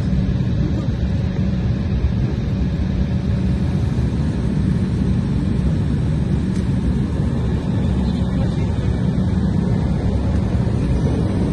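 Jet airliner's engines at taxi power heard from inside the cabin: a steady low rumble with a faint steady hum, unchanging as the plane taxis.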